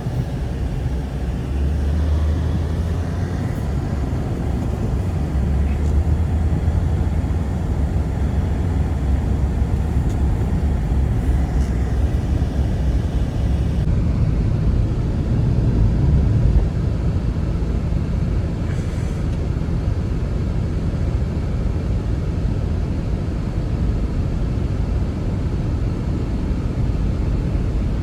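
Blizzard wind blowing hard and steadily, a deep rumbling rush.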